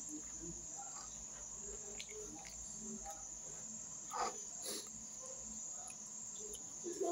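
Steady high-pitched trilling of crickets, with faint scattered clicks and smacks from someone eating meat off the bone by hand, a couple a little louder about four seconds in.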